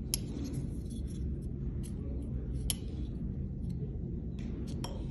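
Jack Wolf Knives Gunslinger folding knife being worked open and shut by hand, giving several sharp, irregularly spaced clicks of its blade and lock. A steady low hum runs underneath.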